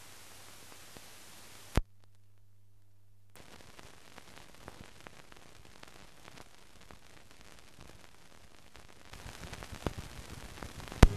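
Surface noise of an archival newsreel soundtrack: steady hiss with a low hum, a sharp click about two seconds in followed by a brief dead-quiet gap, then faint crackle and pops that grow busier near the end, closing on another loud click.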